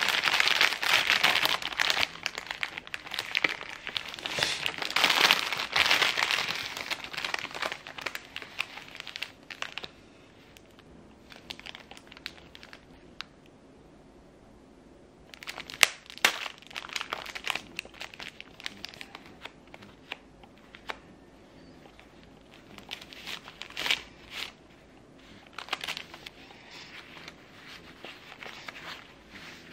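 Thin plastic film wrapper of a pocket-tissue multipack crinkling as hands handle and open it, dense for about the first ten seconds. After a quiet stretch come shorter bursts of crinkling and rustling as a single pack is handled and a four-ply paper tissue is pulled out and unfolded.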